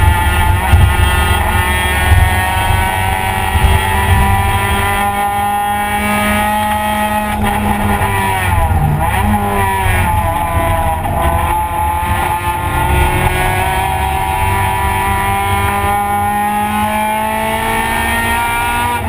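Honda Civic race car's four-cylinder engine heard from inside the stripped cabin, pulling hard around a track. The engine note sags slowly, dips sharply about halfway through as the car slows for a turn, then climbs steadily again, over heavy road and wind noise.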